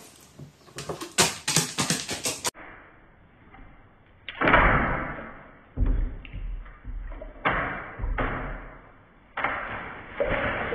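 A crow bathing in a plastic basin of water. A quick run of sharp taps and clicks comes first, then repeated bouts of splashing as the bird dips and beats its wings in the water.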